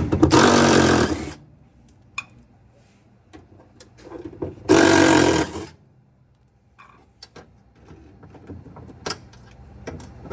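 Cordless power driver running in two bursts of about a second each, one at the start and one about five seconds in, backing out fasteners during a washer teardown. Light clicks and knocks of parts being handled come between the bursts.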